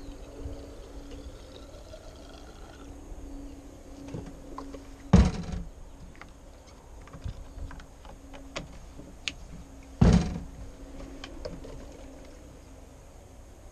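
Chainsaw fuel being poured from a combination can into a Stihl chainsaw, with a faint filling tone that rises in pitch and stops about three seconds in. Then two loud thunks about five seconds apart, with small clicks in between, as the can and saw are handled on the car's metal tailgate.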